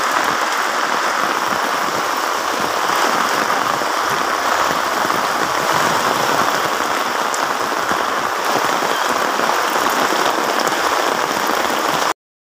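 Heavy typhoon rain pouring onto a wet concrete road, a dense, steady hiss that cuts off suddenly near the end.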